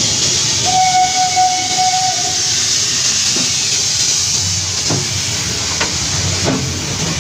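Steam locomotive passing close by at low speed, hissing steam around its wheels. A short, steady whistle note sounds about a second in, and a few metallic knocks come as the running gear goes past.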